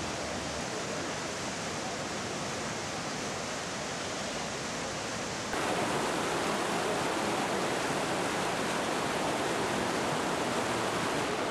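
Fast-moving floodwater rushing, a steady dense wash of water noise that jumps louder about halfway through.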